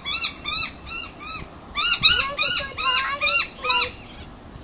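A bird calling over and over in short, arched notes, about two to three a second. A fainter, lower call joins in the middle.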